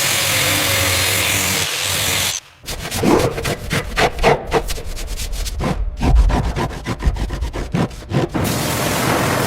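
Abrasive scraping on a rusty surface: a steady hiss for the first couple of seconds, then a fast run of quick back-and-forth scraping strokes, then steady hiss again near the end.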